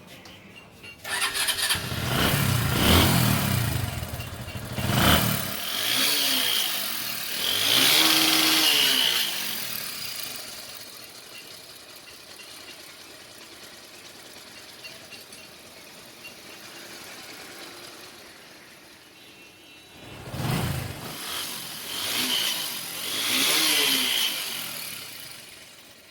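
Bajaj Discover 135's single-cylinder four-stroke engine starting about a second in, then revved in several blips, settling to a steady idle, and blipped again near the end. It runs smoothly, the rattling noise cured by the rocker arm work.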